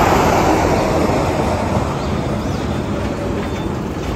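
Heavy Ashok Leyland lorry pulling a low-bed trailer with an excavator on it, passing close by: a dense rush of engine and tyre noise, loudest at first and slowly easing off.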